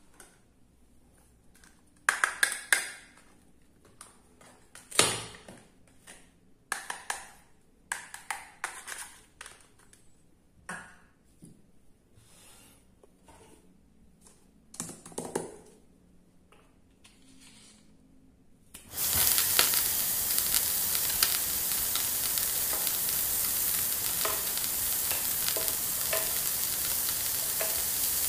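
Hard plastic toy kitchen pieces clicking and knocking in short scattered taps as they are picked up and set down. About two-thirds of the way through, a steady frying sizzle starts abruptly and keeps going: the sizzle effect of a toy barbecue grill.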